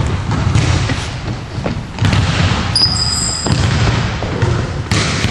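Volleyballs thudding on a gym floor and echoing, over a steady low rumble. A few sharp thuds come about two seconds in and again near the end, and a brief high squeak comes about three seconds in.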